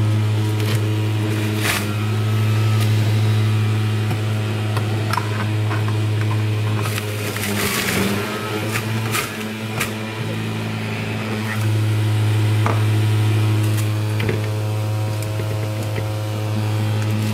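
Breville Juice Fountain Elite centrifugal juicer motor running with a steady hum, grinding leafy greens and other produce pushed down its feed tube. In the middle there is a few seconds of rougher grinding noise with knocks, and the hum weakens briefly.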